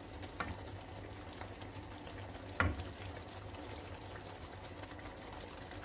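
Thick tomato-cashew curry gravy simmering in a pan, with faint steady sizzling and bubbling. A small click about half a second in and a single louder knock about two and a half seconds in.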